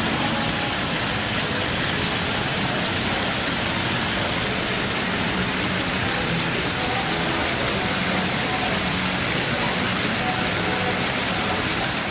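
Steady rushing of running water at an indoor fish pool's water feature, with faint voices in the background.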